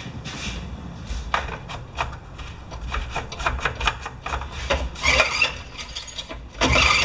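Honda HRA214 lawn mower being pull-started: the recoil starter rope rasps out and the engine cranks without firing, after a squirt of gas down the carburettor. There is scraping and clicking at first, then two stronger pulls near the end.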